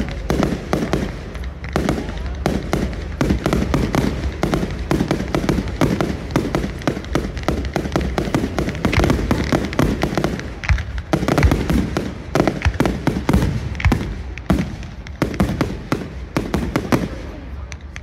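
Fireworks display: a dense, continuous run of bangs and crackles, thinning slightly near the end.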